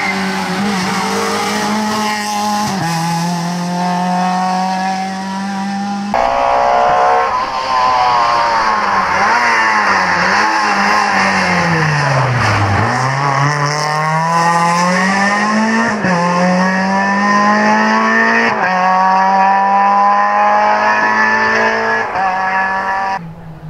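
Renault Twingo rally car's four-cylinder engine at full throttle, the revs climbing and dropping back at each gear change. The revs fall steeply and climb again near the middle. There are sudden jumps in the sound about six seconds in and near the end, where the recording is cut between passes.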